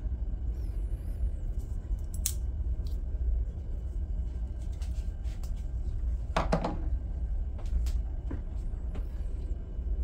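Steady low room rumble, with a few light clicks and taps as folding pocket knives are lifted off a rubber mat and a slip joint is handled.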